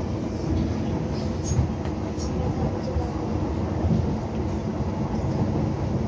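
Docklands Light Railway train running along its track, heard from inside the car: a steady low rumble.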